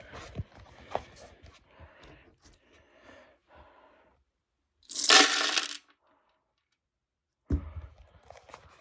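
Broken plastic Rubik's cube pieces clicking and clattering as they are gathered up, with a loud clatter lasting under a second about five seconds in.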